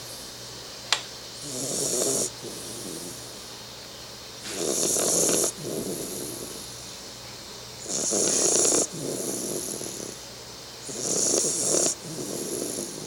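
Three-month-old bull terrier puppy snoring in its sleep: four snores about three seconds apart, each a louder breath that cuts off sharply, then a softer one. A single sharp click about a second in.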